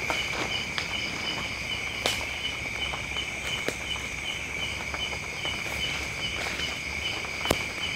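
Steady insect chorus: an unbroken high trill with a pulsing chirp above it repeating a few times a second. A few sharp clicks sound over it, the loudest about two seconds in and near the end.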